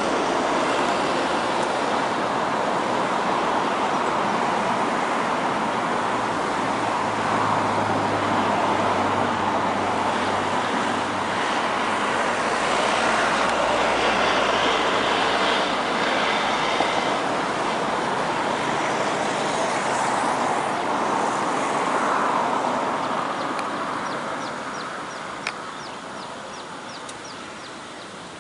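Firefly ATR 72 turboprop's two Pratt & Whitney PW127 engines and propellers running loudly at high power as the aircraft moves along the runway, a steady noise with a low hum. It fades over the last several seconds as the aircraft moves away.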